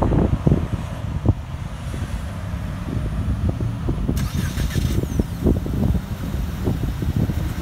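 Wind buffeting the microphone in gusts over the sound of road traffic, with a brief hiss from a passing vehicle about four seconds in.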